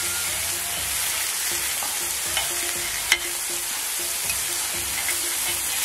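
Beef steak sizzling in oil on a hot iron griddle while metal spatula blades scrape and tap on the plate, cutting it into smaller pieces. There is a sharp click about three seconds in.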